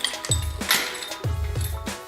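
Background music with a steady beat of deep, falling kick drums and hi-hats.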